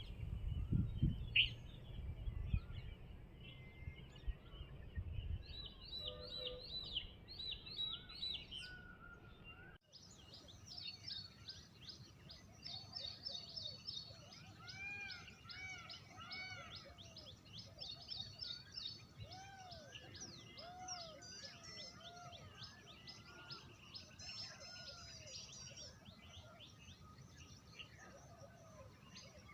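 Several wild birds calling together, with rapid high chirps and repeated short arched notes at a few different pitches. For the first third a low rumble of wind on the microphone sits under the chirps, and then it cuts off suddenly, leaving a clearer and busier chorus.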